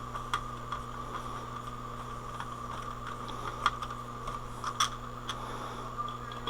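Irregular light clicks, taps and scrapes of small parts being handled while a DVD player's casing is put back together, over a steady electrical hum and whine.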